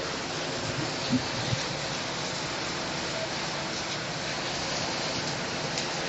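A steady hiss with a faint steady tone under it, and two brief knocks about a second and a second and a half in.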